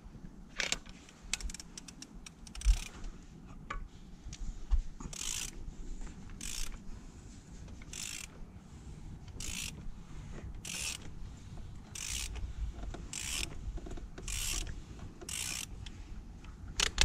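Ratchet wrench clicking through repeated short strokes, about one a second for most of the stretch, as it turns the oil filter housing cap on the engine.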